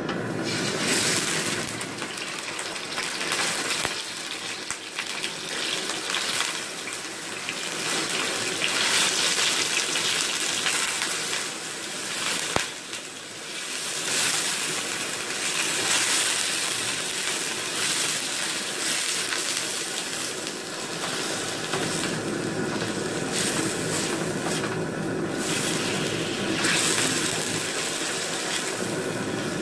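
Beef pieces sizzling in hot oil in a steel wok as they are sautéed, a steady hiss that swells and eases as a spatula stirs them. A single sharp tick about twelve seconds in.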